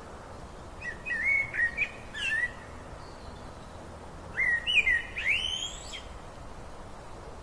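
A songbird singing two short phrases of whistled, sweeping notes, one about a second in and another just past the middle, over a steady rush of river water.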